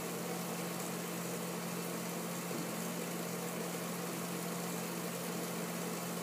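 Steady low hum with an even hiss underneath, unchanging throughout: room background noise with no distinct event.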